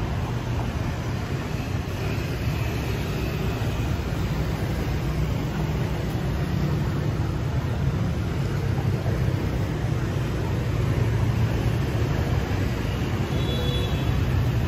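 Steady city street traffic noise: a continuous low hum of passing vehicles.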